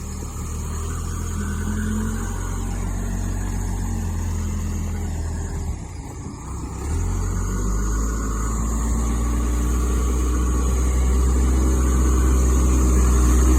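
1998 Case 580L backhoe's four-cylinder diesel engine running steadily, dipping briefly about six seconds in, then pulling harder and growing louder toward the end as the machine turns and pushes into the snow.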